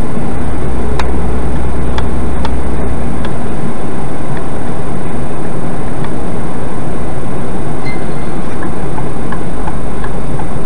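Loud, steady road and engine rumble inside a moving vehicle, picked up by a dashcam microphone, with a thin high steady whine and a few small clicks.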